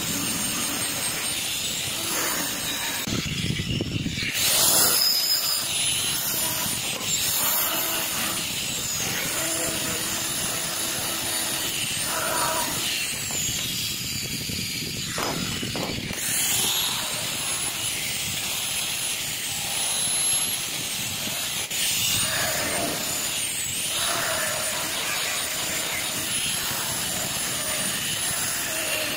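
Electric angle grinder running with an abrasive disc, working a steel hair-clipper blade; its high motor whine dips in pitch now and then, with a few louder surges of grinding noise.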